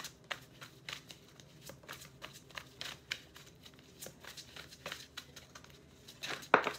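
Tarot cards being shuffled by hand: a run of quick, irregular light card clicks and flutters, with a louder card slap about six and a half seconds in.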